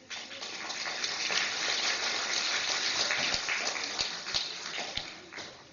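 Audience applauding, a dense patter of clapping that breaks out suddenly and dies away after about five seconds.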